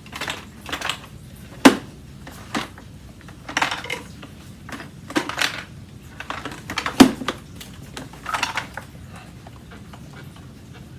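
A loose broken plastic part, the handle-release piece, and its screw rattling around inside the body of an Aeros upright vacuum cleaner as it is moved, in irregular bursts of clatter with two sharper knocks, about two seconds in and again about seven seconds in.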